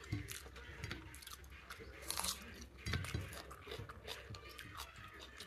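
A person chewing a mouthful of rice and fish, with soft wet mouth sounds and small clicks; a louder, sharp sound stands out a little over two seconds in.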